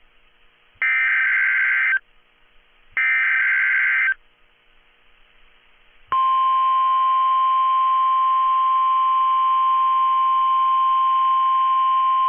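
Emergency Alert System SAME header: two short screeching data bursts of about a second each, a second apart, then a steady weather-radio alert tone that starts about six seconds in and holds. Together they announce that a new emergency alert is about to be read.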